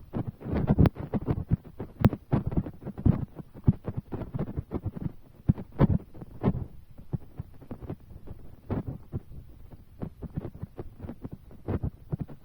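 Raindrops striking close to the microphone: a dense, irregular run of low thuds with a few sharper ticks, like heavy drops landing on a cover just above it.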